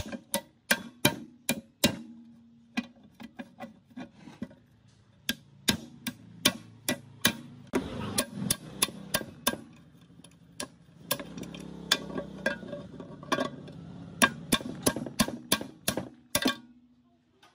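Hammer blows on a pipe wrench clamped to a seized, rusty gearbox shaft, metal on metal, about three strikes a second in several runs with short pauses, working the shaft loose from the cast-iron housing. The blows stop about a second before the end.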